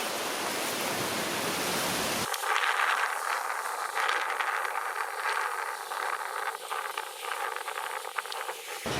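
Steady wind-and-surf hiss, cut off abruptly about two seconds in by close water splashing and trickling: irregular drips and small splashes with no low rumble. It sounds back to the steady hiss right at the end.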